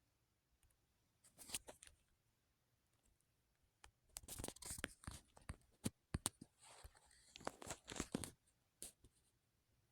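Faint rustling and scraping handling sounds in three bursts, with several sharp clicks among them and a single click near the end.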